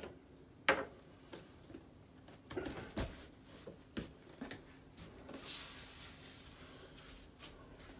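Scattered light knocks and clinks of a spoon against a metal saucepan as mashed potatoes are stirred, with a soft hiss lasting a second or so past the middle.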